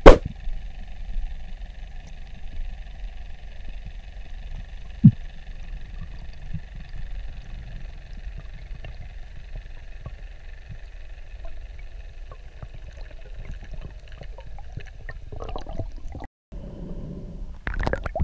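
Underwater ambience picked up through a camera housing: a steady low rumble of water with a faint steady hum above it and one short knock about five seconds in. Near the end it switches to louder, irregular water noise.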